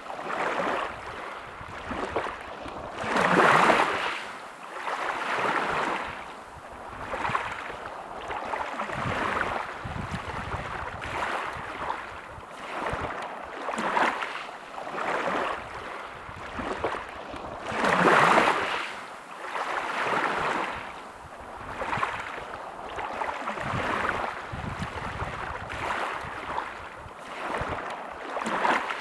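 Small sea waves breaking and washing on the shore, a rush of water that swells and falls back every second or two, with two bigger waves about three seconds in and near the middle.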